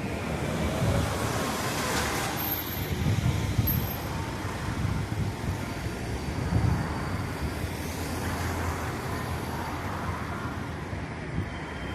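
Road traffic noise: a steady low rumble of passing vehicles that swells and eases.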